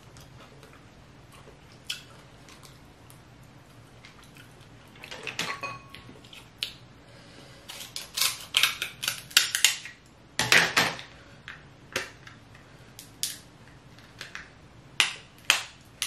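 Snow crab leg shells being cut with kitchen shears and cracked apart. Scattered clicks give way to a dense run of sharp cracks from about five seconds in, the loudest crack coming about ten and a half seconds in, then single clicks again.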